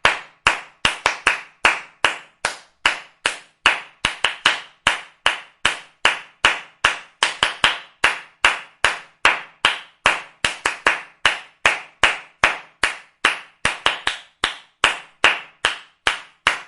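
Hands clapping, a steady run of separate sharp claps at about two to three a second, unevenly spaced with some quick double claps.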